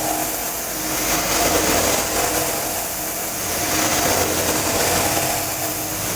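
CNC knee mill cutting steel with an end mill on an adaptive (iMachining) toolpath: steady spindle and cutting noise that swells and eases every second or two as the cutter's engagement and feed rate change.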